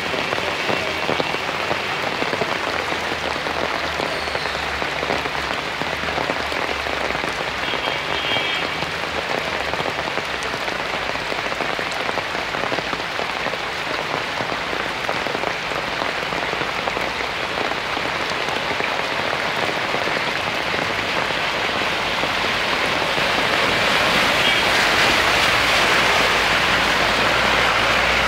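Heavy monsoon rain pouring down on a flooded road: a steady hiss that grows louder over the last few seconds.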